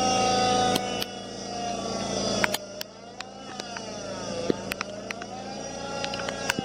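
Lucas swing-blade portable sawmill running as its circular blade cuts oak. The engine's pitch sags under load about halfway through and then recovers, with many sharp ticks over the steady engine sound.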